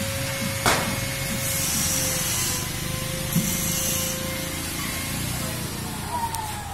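Workshop machinery running with a steady hum and a constant whine. There is a sharp click about a second in and two short bursts of hissing in the middle, and near the end a whine slides down in pitch.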